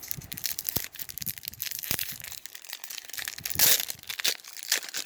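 Foil Pokémon booster pack wrapper crinkling in the hands and then torn open, with one loud, sharp rip a little past halfway through and a smaller tear just after.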